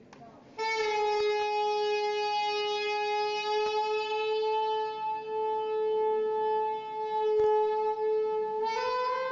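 One long held note on a wind instrument, rich in overtones and steady in pitch, starting about half a second in and stepping up slightly near the end.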